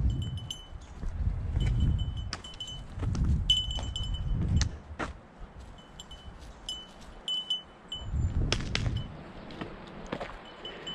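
Small bell worn by a guide dog jingling in short, irregular tinkles as the dog moves about, over low muffled rumbles and a few sharp ticks.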